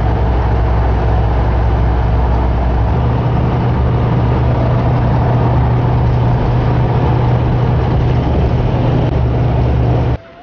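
Road and engine noise inside a car cruising on a highway: a steady low drone with tyre hiss over it. The low hum shifts upward about three seconds in, and the sound cuts off abruptly near the end.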